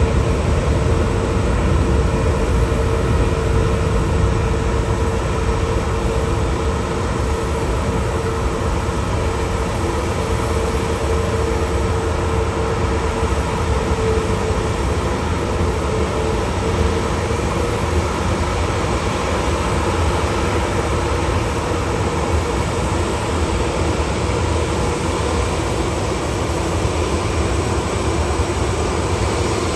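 Jet engines of a Boeing 737-800 (CFM56) running at taxi idle: a steady low rumble with a constant whine over it.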